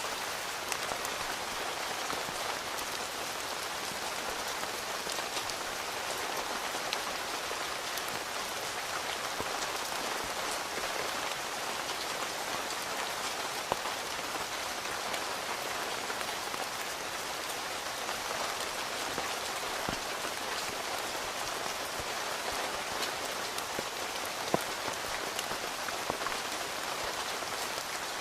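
Steady rain falling on a tent, an even wash of rain with many small drop hits scattered through it and a few sharper, louder ones.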